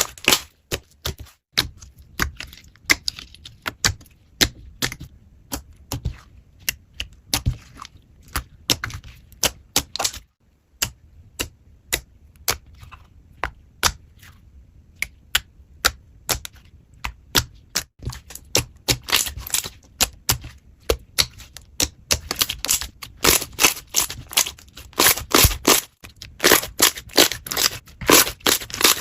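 Slime being squeezed and poked by hand, making a run of sharp popping clicks that come thicker and louder in the second half.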